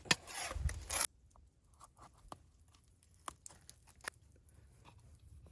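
Plastic food packaging crinkling and tearing open, stopping abruptly about a second in, followed by a few faint scattered clicks and taps.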